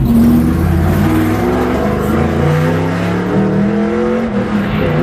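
Several stock-car V8 engines running on pit road, idling and revving, their pitches rising and falling against each other.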